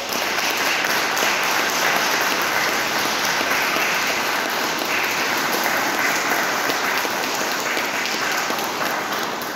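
Congregation applauding: steady clapping that starts suddenly and dies down near the end.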